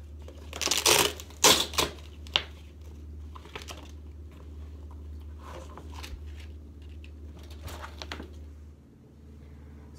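Rustling and rip-like handling noises, as of a brace's straps being pulled open and the brace taken off: a few loud rips in the first two and a half seconds, then quieter rustles and clicks. A steady low hum runs underneath and drops out near the end.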